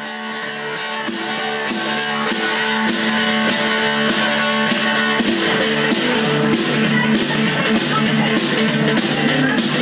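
Live rockabilly music: an electric guitar playing with a snare drum beating steadily, the snare coming in about a second in. The music fades up over the first few seconds.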